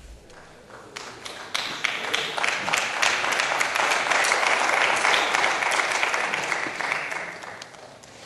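Applause from the members seated in the chamber: scattered claps from about a second in that swell into full applause and then die away near the end.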